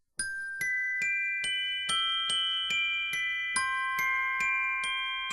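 Music: high bell-like notes struck one at a time, a little over two a second, each ringing on under the next, with no voice yet.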